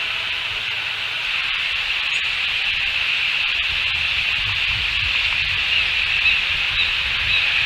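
Steady high-pitched hiss of outdoor ambience picked up by an eagle-nest camera microphone, unchanging throughout, with a faint low rumble in the second half.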